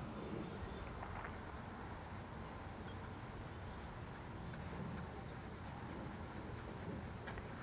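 Insects, crickets or similar, chirring steadily as a faint high buzz over quiet background noise.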